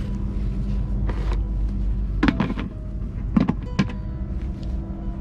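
Plastic storage box lid being set on and its latches snapped shut: a few sharp plastic knocks and clicks in the second half, over a steady low rumble.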